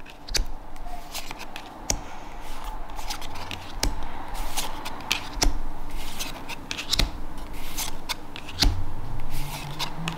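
Digimon trading cards being flipped through by hand one at a time, each card slid off the stack and tucked behind, giving irregular papery swishes and clicks.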